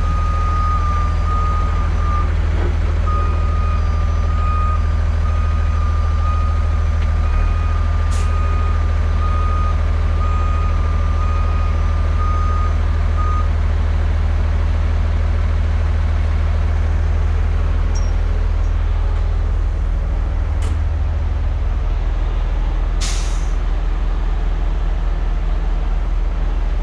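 Heavy diesel tow trucks running steadily under load, with a truck's reversing alarm beeping for about the first half. Short air hisses come about 20 and 23 seconds in, the second the longest.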